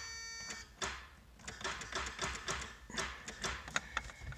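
An electronic warning buzzer pulses steadily and then cuts off about half a second in. It is followed by a string of light, irregular clicks and taps.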